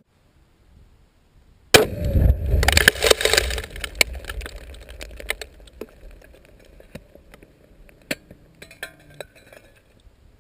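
Three-pound Tannerite charge detonating under an Xbox 360 console: a sudden loud blast about two seconds in, with a low rumble and crackle. It is followed by several seconds of scattered clinks and cracks of debris coming down, fading out.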